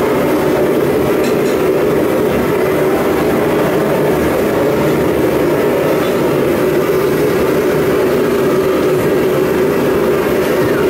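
Blacksmith's forge running with a loud, steady, even rush of noise while a thick steel plate heats in it.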